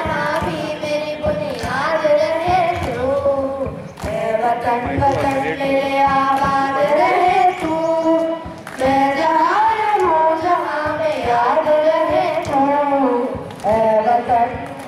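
A group of children singing a song together into microphones, with short breaks between the sung lines.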